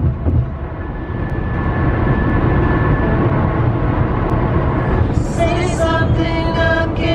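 Steady road and engine noise inside a moving car's cabin. About five seconds in, a song with a singing voice comes in over it.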